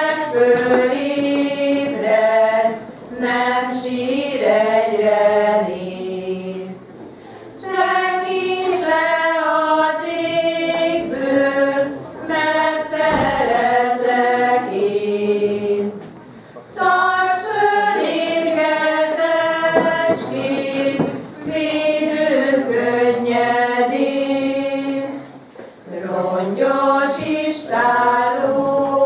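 A women's folk choir singing a Hungarian song together, in phrases of a few seconds with short pauses between them.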